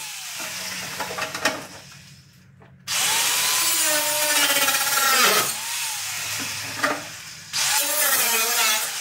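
Grinder with an abrasive cutoff disc cutting through the car's steel parcel shelf: a quieter stretch in the first two seconds, then two loud cuts, one about three seconds in and one near the end. The disc's whine dips in pitch as it bites into the metal.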